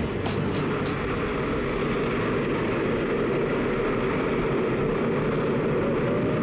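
Steady roar inside a propeller jump plane's cabin with the door open: engine noise and rushing wind through the open jump door.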